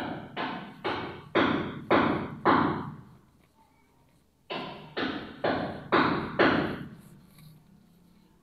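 Heavy knocks or thuds, about two a second, each dying away quickly: six in a row, a pause of about a second and a half, then five more.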